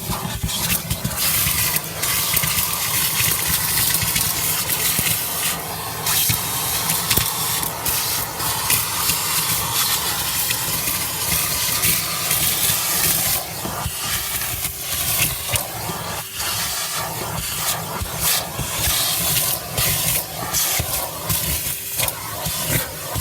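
Vacuum cleaner running steadily with a loud hiss of suction as it cleans a car's interior, with frequent short clicks and rattles of debris going up the nozzle.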